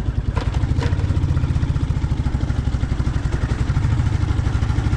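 Royal Enfield motorcycle engine running with an even, rapid beat, with two brief clicks about half a second in.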